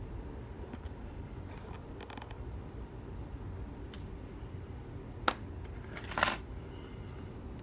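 Small metal tools and lock parts being handled on a hard surface: faint clicks, a sharp click about five seconds in, then a brief, louder ringing metallic clink a second later.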